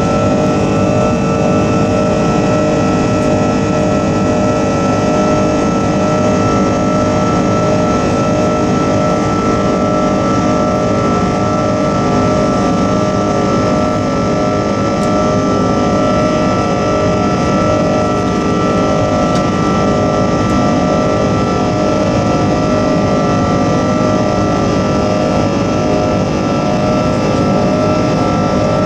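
Airbus A330-300 jet engines at climb power after takeoff, heard from inside the cabin over the wing: steady loud engine noise with a constant whine over it.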